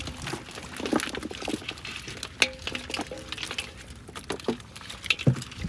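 Water splashing and pattering with irregular small knocks as live fish and eels are tipped out of a fish trap.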